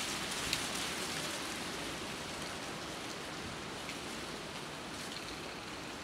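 Steady wind hiss with a few faint ticks; it sounds rather like rain.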